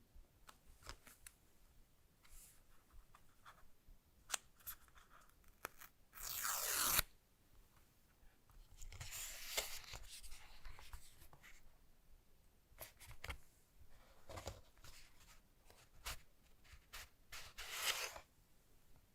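Phone packaging being opened and handled: scattered small clicks and taps, with several short tearing, rustling sounds. The loudest tear comes about six seconds in.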